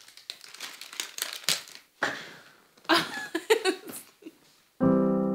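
Two people laughing and giggling softly in short irregular bursts. Near the end a sustained piano chord comes in suddenly and rings on.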